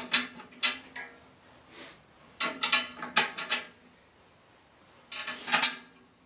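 Steel carriage bolts and hardware clinking and rattling against the steel scraper blade of a snowblower as it is fitted back on. Four short bursts of clinks.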